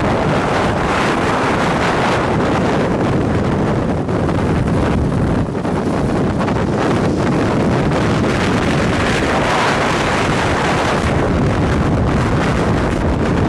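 Strong wind near a tornado blasting across the microphone: a loud, steady rush of wind noise.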